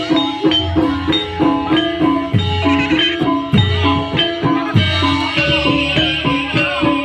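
Banyumas-style gamelan playing ebeg accompaniment: mallet-struck tuned percussion picking out a repeating melody of short ringing notes over a steady drum beat.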